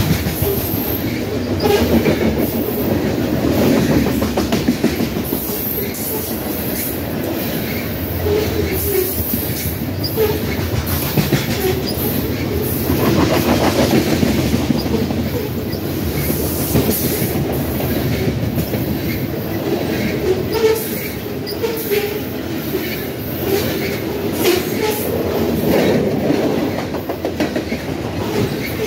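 Covered hopper cars of a freight train rolling past close by: a steady rumble of steel wheels on the rails with repeated clacks as the wheels go by, and short high-pitched squeals now and then.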